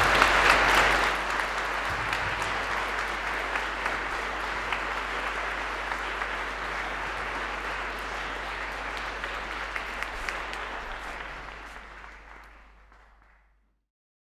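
Audience applauding, loudest in the first second and then steady, fading away near the end.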